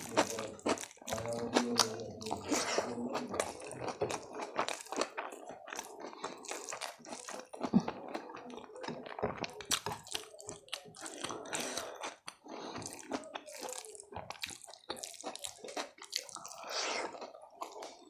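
Close-miked eating: irregular crunching bites and wet chewing and mouth sounds of someone eating a homemade meal of rice, vegetables and salad.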